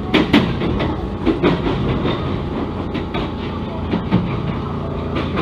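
Passenger train running, heard from inside the car: a steady rumble of wheels on rail with irregular sharp clacks from rail joints, two strong ones right at the start.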